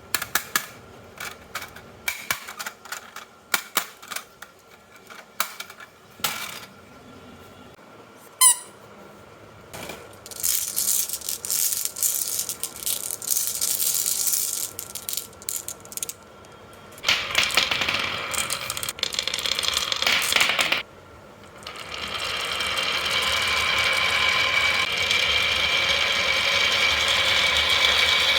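Marbles rolling and clacking down a HABA wooden marble run: scattered clicks and knocks at first, then stretches of continuous rolling that build into a steady rattle over the last several seconds. A single brief ringing ping about eight seconds in.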